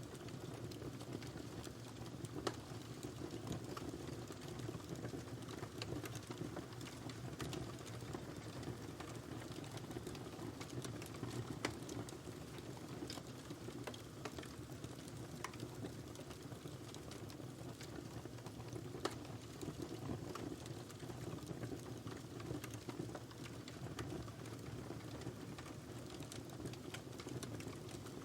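Wood fire burning in a fireplace: a steady low rush of flame with frequent sharp crackles and pops scattered throughout.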